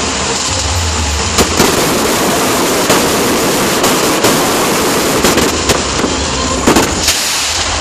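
Fireworks display: a dense, continuous crackle and hiss of bursting stars, with about ten sharp bangs of shells exploding scattered through it.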